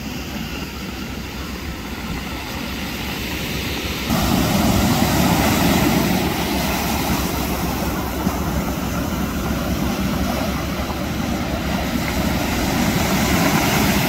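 Sea surf: waves breaking and washing on the shore in a steady rushing noise, which grows abruptly louder about four seconds in.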